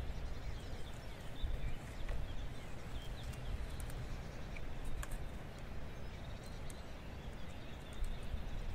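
Wind buffeting the microphone in a steady, uneven low rumble, with a few faint clicks from the plastic mesh tree guard being handled and tied around the trunk.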